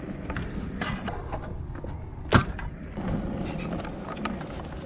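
Stunt scooter wheels rolling on asphalt with a steady rumble. About two seconds in comes one sharp clack as the scooter hits the ground during a flatground trick.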